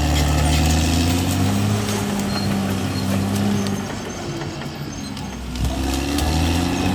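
Diesel engine of a CAT D6R XL bulldozer running under load, its pitch shifting as it works; it eases off about four seconds in and revs back up near six seconds.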